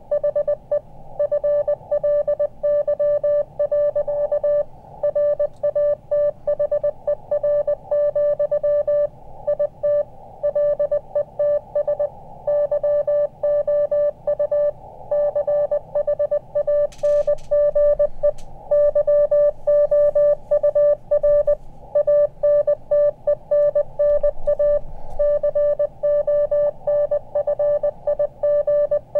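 Morse code (CW) received on an Elecraft KX2 transceiver: a single steady mid-pitched beep keyed on and off in quick dots and dashes, with a hiss of band noise between characters, as stations exchange a contact. A couple of brief clicks come about two-thirds of the way through.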